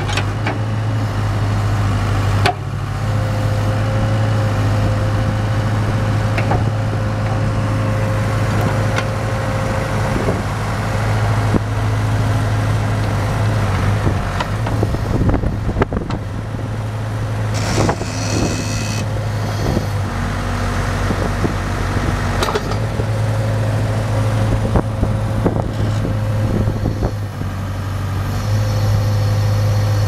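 Case 580K backhoe's four-cylinder diesel engine running steadily while the backhoe boom and bucket are worked, with occasional knocks and a brief high squeal about two-thirds of the way through.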